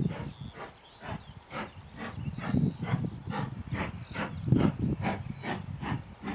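Southern S15 class two-cylinder 4-6-0 steam locomotive working a goods train, its exhaust beating in steady, even chuffs about two a second. Irregular low rumbles of wind buffeting the microphone run underneath.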